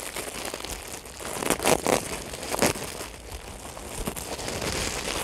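Clear plastic packaging crinkling and rustling as a pair of leather gloves is unwrapped by hand, with irregular sharp crackles that are loudest about halfway through.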